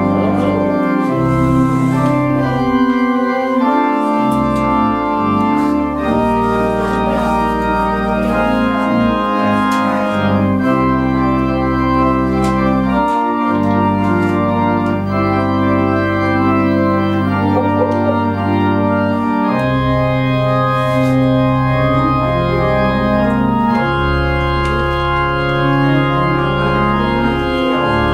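Organ playing the postlude after the benediction: sustained full chords over held bass notes, the harmony changing every few seconds.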